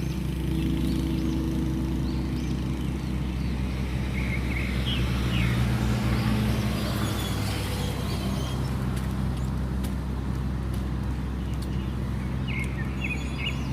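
Tugboat's diesel engine running with a steady low drone, working upstream against the current.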